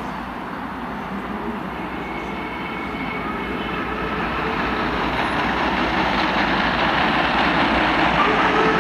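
Royal Scot class steam locomotive 46100 approaching at full speed. The rush of its running and exhaust grows steadily louder as it nears.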